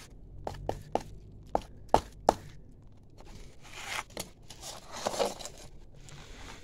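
A run of sharp, irregular clicks and taps, the two loudest about two seconds in, then two short spells of scraping rustle. These are the sounds of wet canned food being handled on a sheet of cardboard.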